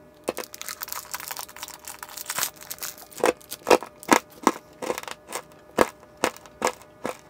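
A small plastic sweet wrapper being crinkled and torn open by hand: a run of crisp crackles, denser in the first half and louder and more spaced out in the second half.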